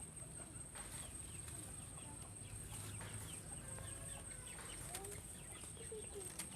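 Faint bird calls: a quick run of short, falling chirps repeated over and over, with a few soft, low clucking notes about five seconds in. A steady, thin high tone runs underneath.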